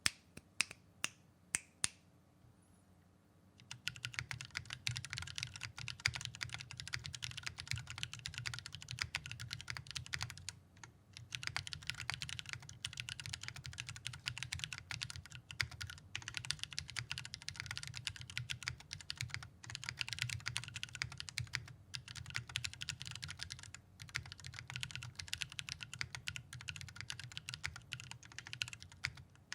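Custom Space65 mechanical keyboard being typed on: lubed Holy Panda tactile switches in a carbon fiber plate with GMK Olivia keycaps, on a deskmat. A few separate key presses come first, then steady fast typing from about four seconds in, with a few short pauses.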